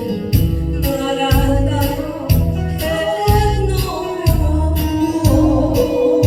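A song performed live: a singing voice over a backing track with a steady beat of about two strikes a second and a pulsing bass.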